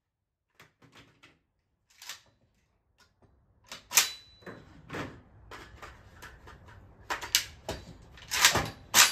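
Clicks and clacks of a rifle being handled by hand, with no shots fired. Faint at first, then louder sharp clacks from about halfway, the loudest near the end.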